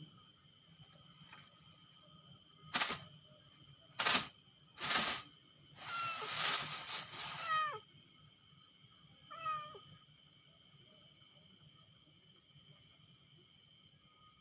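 A cat meowing several times: short harsh bursts, then a longer run of falling cries about six to eight seconds in and one more short one near the middle. Steady insect chirring runs underneath.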